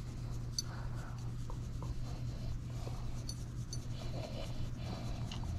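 Hands rubbing and scratching a short-coated dog's fur, a soft, irregular scratchy rustle, with a steady low hum underneath.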